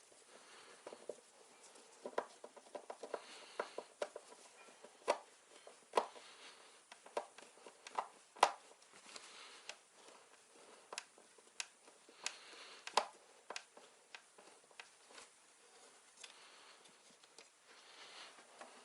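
Faint, irregular light clicks and taps from hands handling computer parts and tools, with soft rustling between them.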